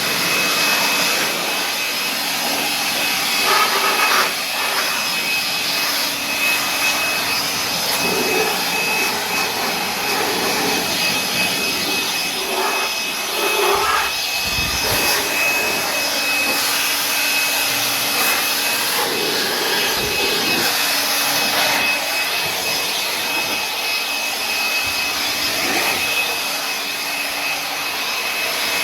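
Electric air blower running steadily with a high whine, drying a freshly cleaned and antifungal-treated air-conditioning unit.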